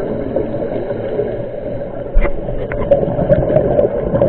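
Underwater sound on a scuba dive, heard through the camera's housing: a steady rushing with a faint low hum, scattered sharp clicks, and one louder knock about two seconds in.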